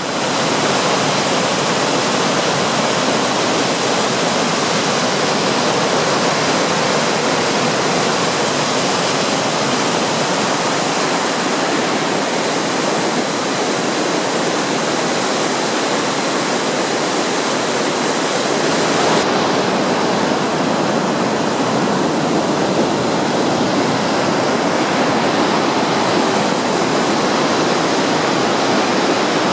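Floodwater of a river in spate rushing and churning past the weir and footbridge, a loud, steady rush of water with no letup.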